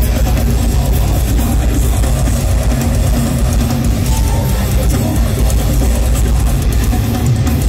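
Deathcore band playing live at full volume: distorted guitars, bass and drums, with a heavy, constant low end.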